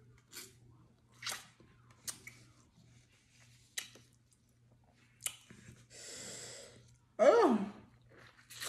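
Wet mouth sounds of eating saucy seafood: several short lip smacks and slurps as sauce is sucked off gloved fingers. A long breathy exhale comes about six seconds in, then a brief, louder voiced vocal sound whose pitch rises and falls.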